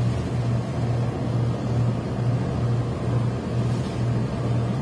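Industrial steam iron fed by a steam hose, pressing fabric: an even hiss over a low hum that pulses two to three times a second from the steam equipment.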